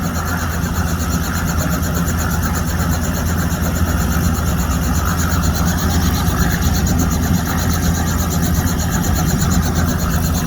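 Helicopter running on the ground with its rotor turning: a steady, loud engine and rotor drone with a fast, even rotor chop, held steady before lift-off.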